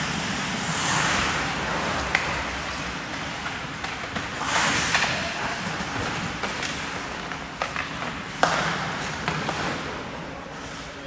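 Ice hockey play at close range: skate blades scraping and hissing on the ice as players push around the goal, with sharp clacks of sticks and puck, the loudest knock about eight seconds in.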